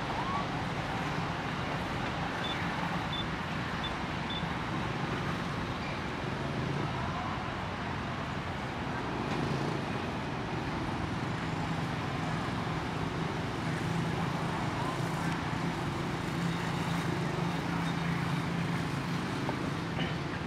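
Steady outdoor background rumble with a low hum and no distinct events, with a few faint high chirps about two to four seconds in.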